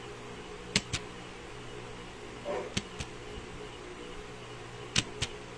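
Sharp clicks in quick pairs, three times about two seconds apart, over a steady low hum: repeated double-clicking on a device, trying to get something that won't open to open.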